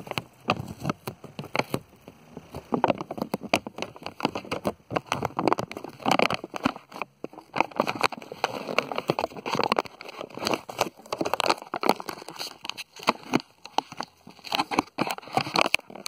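Close rustling, crackling and irregular knocks on the phone's microphone as the phone is handled and moved about.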